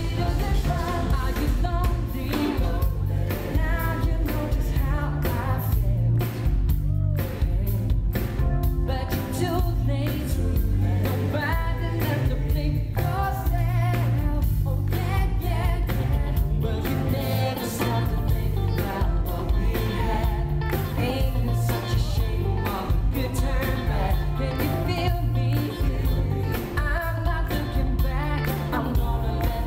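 Live pop music: a male vocal harmony group singing together over a backing band with drums and a strong bass, heard through the venue's PA from the audience.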